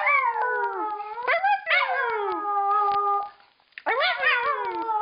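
Schipperke howling: two long, wavering howls that slide down in pitch and level off, with a short break about three and a half seconds in.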